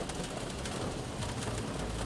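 Heavy shower rain falling on a car's roof and windshield, heard from inside the car as a dense, steady patter of drops. A low rumble of road traffic grows louder near the end.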